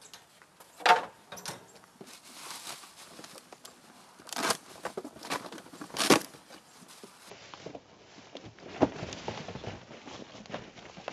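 Cardboard and plastic packaging rustling, crinkling and tearing, with several sharp knocks and scrapes, as a portable fridge is unpacked from its box.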